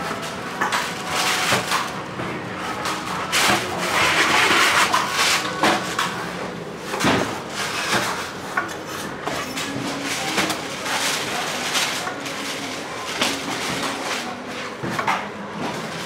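A knife or cleaver striking and chopping coconuts: irregular sharp knocks, a few strokes a second at times, over a steady background noise, with a louder stretch of rough noise about four seconds in.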